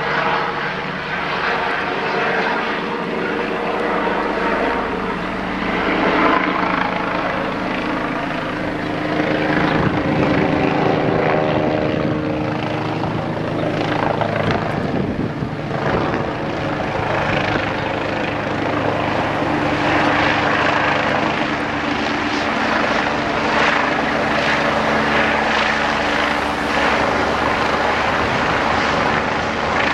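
Police helicopter flying overhead: a continuous rotor thrum and turbine tone that stays steady throughout, shifting slightly in pitch and loudness as it passes over.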